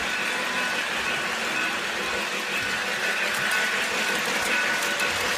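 Lionel model train running along its track: a steady electric motor whir and wheel rumble, with faint clicks in the middle.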